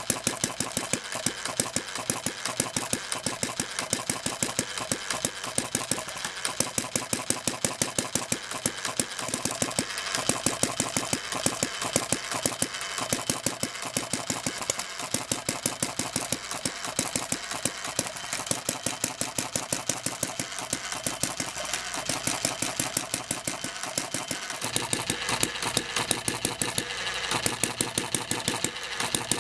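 Small homemade camstopper hit-and-miss engine running, its valve gear and governor giving a rapid, even clicking. The builder says it still doesn't hit and miss quite right.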